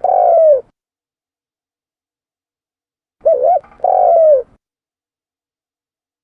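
Spotted dove cooing: a phrase ends right at the start, and about three seconds in comes one full phrase, a short wavering double note followed by a longer slurred coo that falls slightly at its end.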